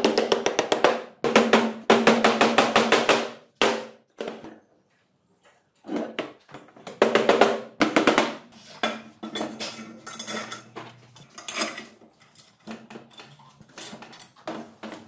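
Black mallet striking bushings into welded steel tube sleeves on a steel-plate bench, in quick runs of rapid blows with short pauses between them, growing lighter near the end.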